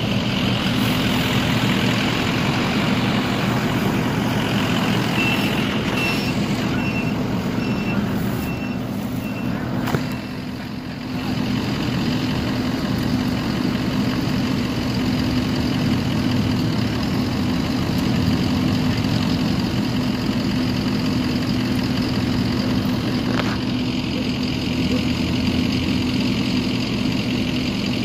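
Engine running steadily at idle, dipping briefly about ten seconds in. A reversing alarm beeps in an even series for about four seconds, starting about five seconds in.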